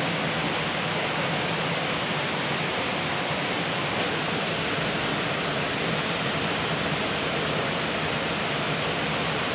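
Steady, even rush of flowing river water, with no change in level throughout.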